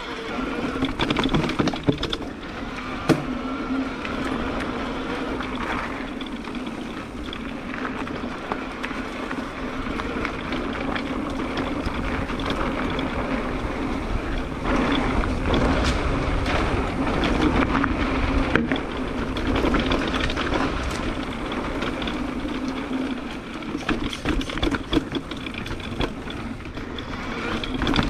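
Electric mountain bike riding fast down a rough dirt trail: tyres rolling and the bike rattling over rocks and roots, with frequent irregular knocks and a steady hum underneath.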